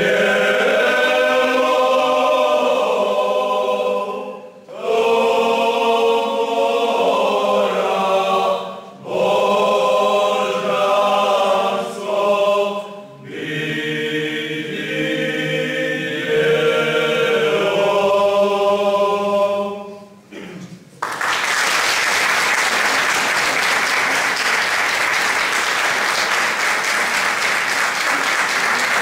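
Men's folk choir singing a cappella in several voices, in four phrases with short breaks between them, the song ending about two-thirds of the way through; the audience then breaks into steady applause.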